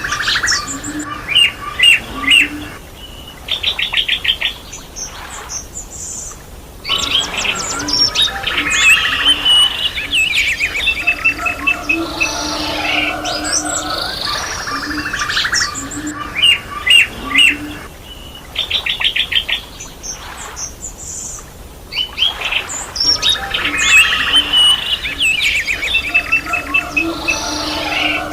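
Several birds chirping, trilling and whistling together in a dense chorus. The same stretch of birdsong seems to come round again about every fourteen seconds, like a looped recording.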